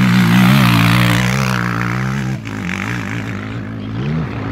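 Sport quad ATV engine running hard at high revs as it climbs the dirt hill close by. About two and a half seconds in the engine note drops and then wavers up and down in pitch.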